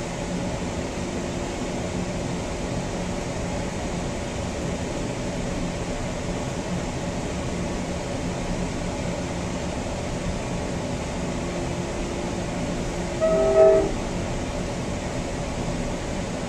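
Steady rumble of a Coaster commuter train running on the rails, heard from inside the cab car. Near the end the cab car's Nathan K5LA five-chime air horn sounds one short blast.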